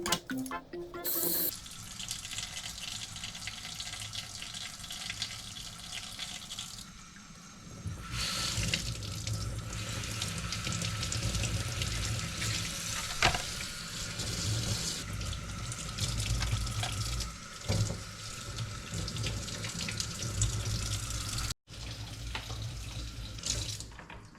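Tap water running into a sink as fish are washed under it, heavier from about a third of the way in, with a brief break near the end.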